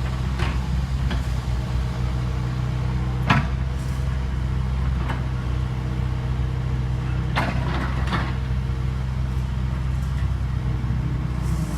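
Kobelco SK75UR excavator's diesel engine running steadily, with several short sharp knocks over it, the loudest a little over three seconds in.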